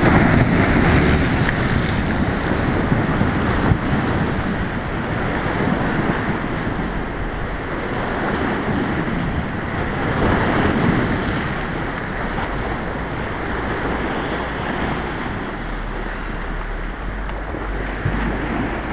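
Choppy water of the River Trent's Aegir tidal bore rushing and washing against a rocky bank. Wind rumbles on the microphone throughout and grows stronger near the end.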